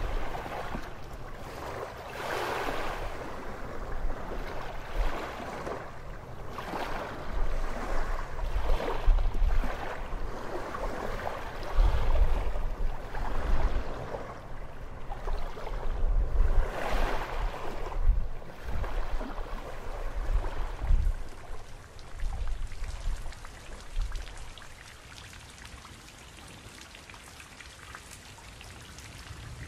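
Sea waves washing in swells every two to three seconds, with wind rumbling on the microphone. In the last several seconds the wash dies down to a steady, quieter hiss.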